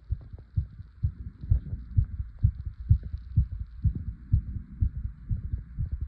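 Fast heartbeat: low thuds repeating evenly at about two beats a second.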